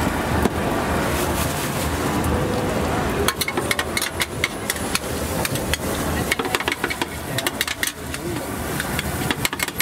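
Street traffic noise, then from about three seconds in a metal spatula clacking rapidly and irregularly against a wok as noodles are stir-fried.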